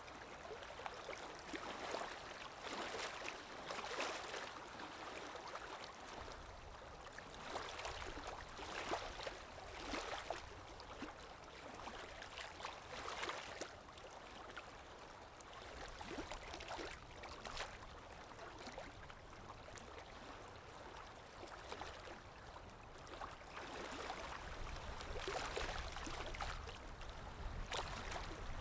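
Running water splashing and gurgling in irregular bursts, like a stream, with a low rumble underneath that grows louder toward the end.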